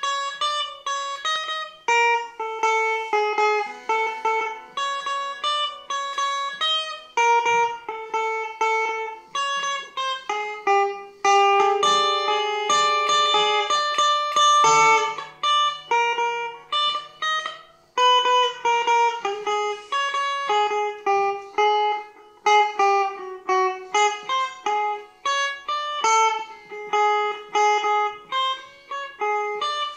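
Electric guitar played solo, a quick stream of short, separate picked notes in the upper register, meant to depict pattering rain. About halfway through the notes ring longer and louder for a few seconds, then the short notes resume.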